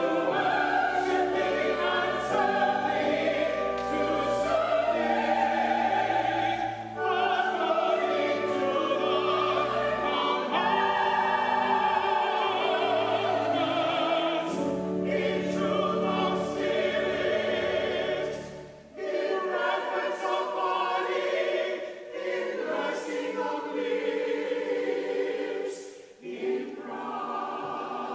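Church choir singing a slow anthem in parts, accompanied by organ with sustained low notes. About two-thirds of the way through the low organ notes drop out and the choir carries on almost alone.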